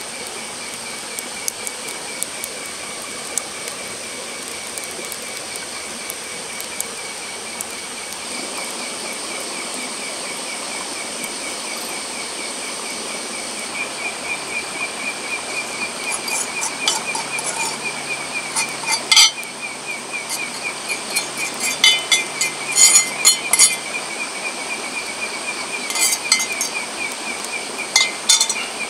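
Steady chorus of night insects with a high pulsing trill. From about halfway there are repeated sharp clinks and scrapes as a utensil pushes noodles out of a small cast-iron pan onto a plate.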